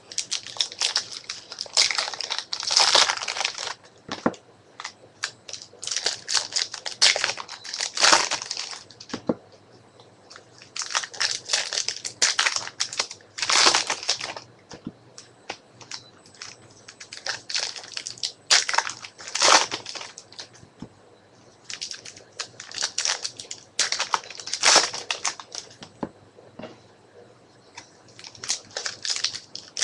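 Trading-card pack wrappers crinkling and tearing by hand as packs are opened, along with cards being handled and flipped through. The crinkling comes in repeated bursts of a second or two with short pauses between them.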